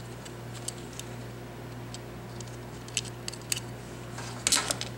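Small plastic clicks from handling the opened Logitech G500s mouse's scroll-wheel assembly, a few sharp ones around three seconds in, then a short clatter about four and a half seconds in, over a steady low hum.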